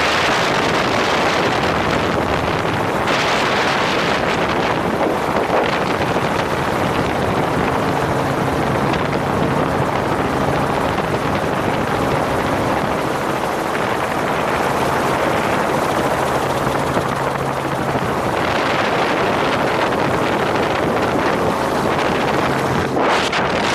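Heavy wind rushing over the microphone in an open-door helicopter in flight, with the steady drone of the helicopter's engine and rotor underneath.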